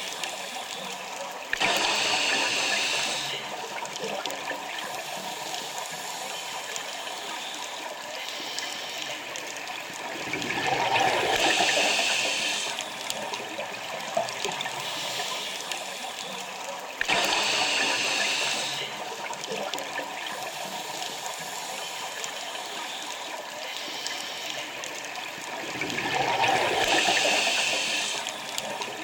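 A scuba diver breathing through a regulator underwater, two breaths about 15 seconds apart. Each breath is a sudden hiss lasting about two seconds, which starts about a second and a half in and again near the middle. Each is followed some seconds later by a swelling gurgling rush of exhaled bubbles, around ten seconds in and again near the end.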